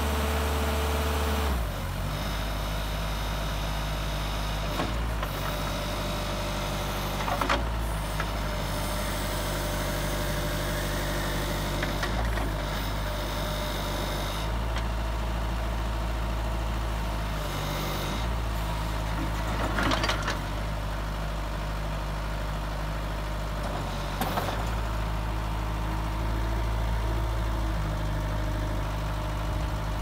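Bobcat B300 backhoe loader's diesel engine running steadily as its hydraulics move the loader bucket and stabilizer. The engine note drops about a second and a half in, and a few short knocks or clunks come through, around four in all.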